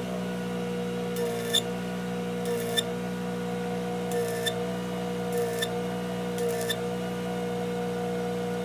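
Arc welding on a truck bed's steel edge plate: short bursts of arc crackle about once a second, over a steady hum.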